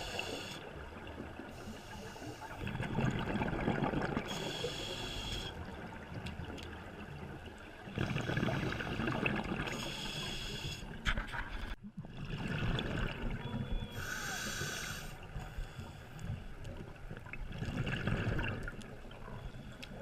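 A scuba diver breathing through a regulator underwater. Each inhale is a short hiss from the demand valve and each exhale is a burst of rumbling bubbles, repeating about every three to four seconds.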